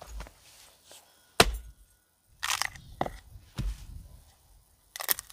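An axe strikes a block of wood with one sharp crack about a second and a half in, followed by several shorter cracks and knocks as the wood splits apart along its wind-shake separation.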